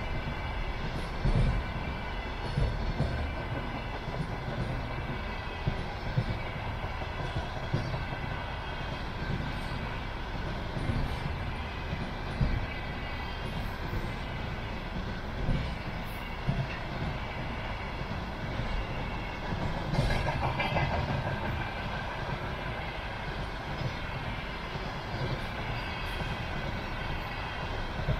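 Container freight train rolling past: a steady rail rumble with faint high ringing tones and irregular loud wheel thumps every second or few, with a short rattling burst near the two-thirds mark.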